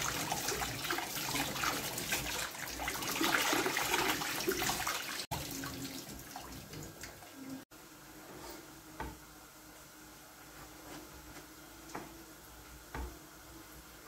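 Kitchen tap running onto tomatoes rubbed by hand over a stainless steel sink, the splashing water loud for the first five seconds or so. Then quieter, with a few light knocks on a plastic chopping board.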